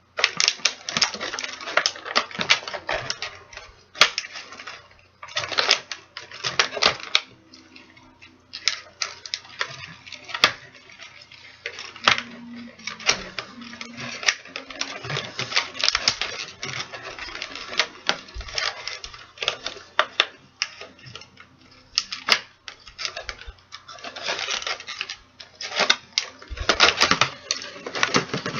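Toy packaging being handled: crinkly plastic and rapid clicks and rattles of plastic pieces as a figure is worked free of its tray and twist ties. The clatter comes in irregular clumps with brief lulls.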